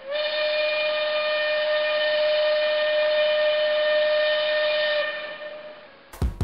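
Train whistle blowing one long steady note with a hiss of air or steam, fading away about five seconds in. A short low thud follows near the end.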